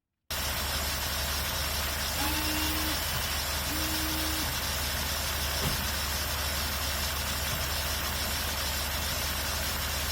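Range Rover L322's 4.4 TDV8 diesel engine running steadily at idle, with two short steady hums about two and four seconds in.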